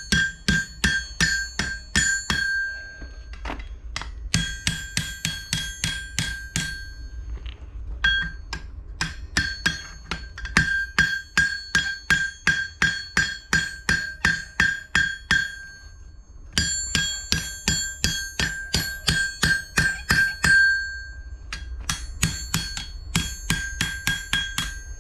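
Blacksmith's hammer striking a hot horseshoe on the anvil horn, bending it around, about four ringing blows a second in runs of several seconds with short pauses between. Each blow leaves a bright, bell-like ring from the anvil.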